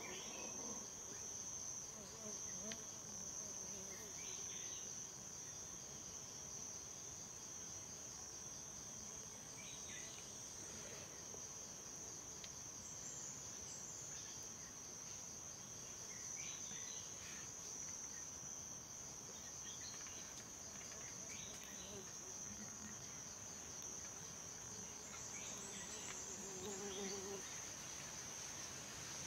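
Steady high-pitched drone of an insect chorus in forest, unbroken throughout, with a few short, faint sounds scattered over it.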